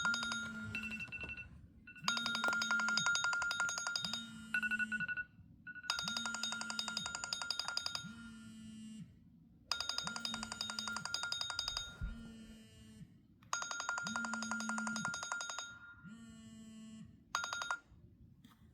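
Several electronic device alarms ringing at once: a bright, repeating electronic alarm melody cycling about every two seconds, with a phone's vibration motor buzzing in pulses underneath. It stops with a short last burst near the end.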